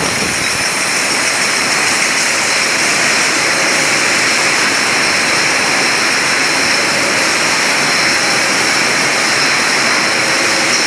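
Steady machine noise of a running juice bottling line, conveyors and filling machinery together: a constant loud hiss with a couple of high, steady whining tones over it.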